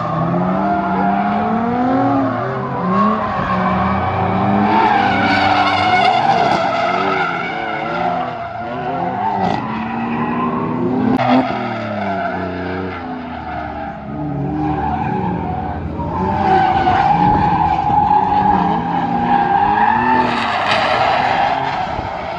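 Drift cars sliding sideways: engines revving up and down over and over while the tyres squeal in long screeches, which swell in two stretches of a few seconds each. A single sharp crack sounds about eleven seconds in.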